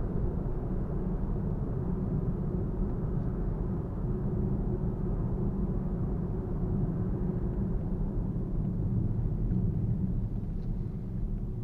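Nissan Fuga 370GT's 3.7-litre VQ37VHR V6 and tyre noise of the car driving along the road: a steady low rumble with a faint, even drone.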